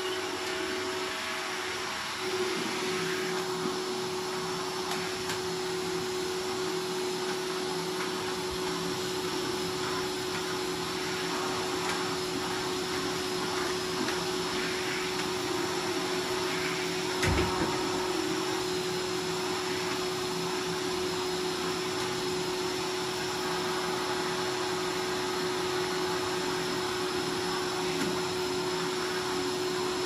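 Bagless canister vacuum cleaner running steadily, its motor holding one constant tone over a wide rush of air noise. There is a single brief knock about seventeen seconds in.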